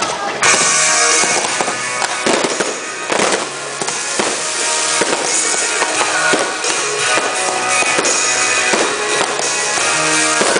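Aerial fireworks bursting one after another, with dense crackling, over music.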